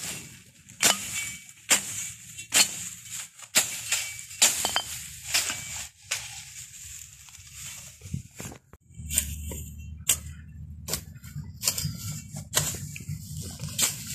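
Machete strokes slashing through tall dry grass and weeds: a sharp swishing cut about once a second, with a pause of a couple of seconds just past the middle.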